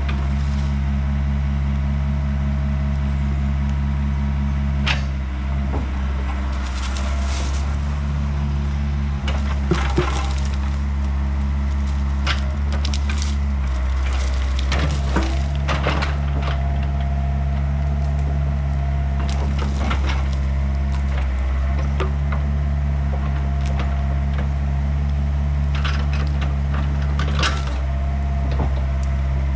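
Hickory wood cracking and splintering in a string of sharp snaps scattered through, over the steady running of a Yanmar B50 excavator's diesel engine.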